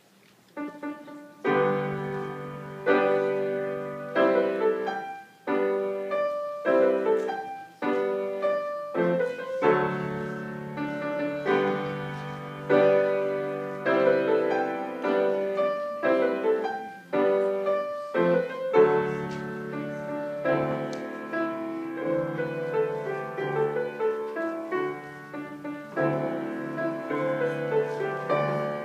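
Solo grand piano played live: after about a second of quiet it opens with separate struck chords broken by short pauses, then goes into continuous playing.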